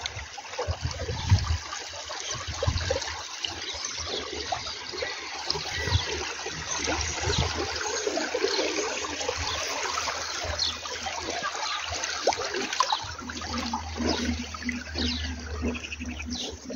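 Water rushing steadily along a small earthen irrigation ditch.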